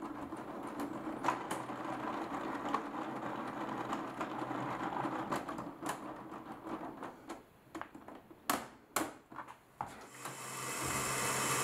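LEGO Technic plastic gearbox being cranked by hand, its gears clicking and rattling in a dense, even stream, going heavily because the connected machine is coupled to it. The clicking thins out into a few sharp single clicks, and about ten seconds in a steady motor-driven whir rises in.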